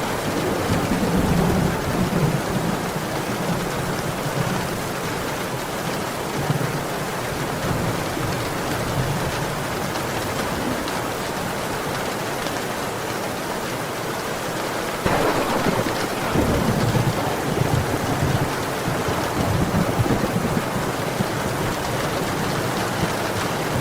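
Steady downpour of rain with low rolling thunder. About fifteen seconds in, a louder thunderclap starts suddenly and rumbles on.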